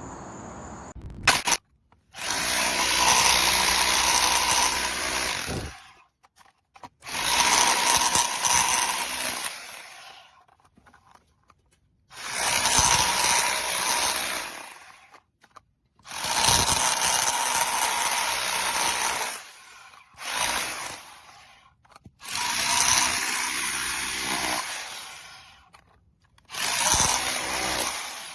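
ENEACRO SDS-Plus 1500W rotary hammer drill running in repeated bursts of two to four seconds, about seven times, each stopping abruptly.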